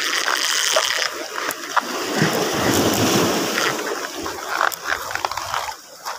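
Sea waves washing and splashing over shore rocks, swelling up about two seconds in, with wind buffeting the microphone.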